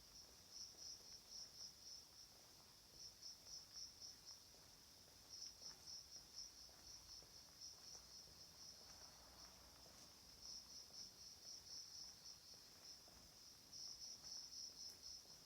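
Faint cricket chirping: quick trains of high-pitched chirps lasting a second or more each, with short pauses between them.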